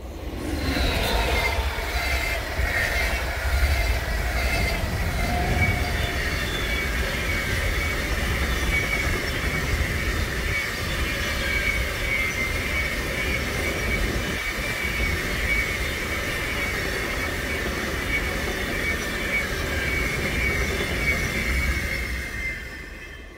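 Freight train of covered hopper wagons passing close at speed: a steady rumble of wheels on rail with a high, steady squeal running through it. The pitch drops in the first few seconds as the head of the train goes by, and the sound fades as the last wagons pull away near the end.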